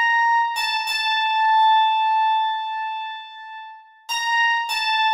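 Virtual piano app on a phone playing a slow melody one high note at a time. Two notes sound close together, ring and fade for a few seconds, then two more notes come near the end.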